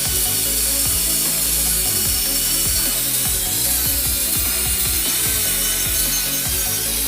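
Steady scraping and rubbing of tool work on a part, with a continuous hiss and many short repeated strokes.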